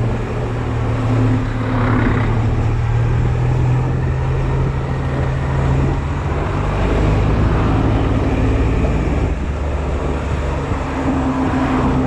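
Honda Silver Wing maxi-scooter engine running steadily, a constant hum with a higher note that comes and goes, over road noise.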